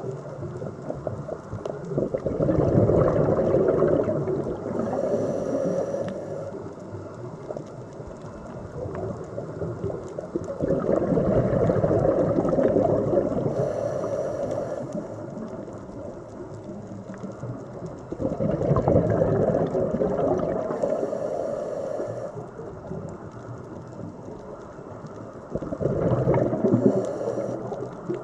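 Scuba diver's regulator breathing underwater: four long bursts of bubbling exhalation, about eight seconds apart, each followed by a short high hiss of the regulator.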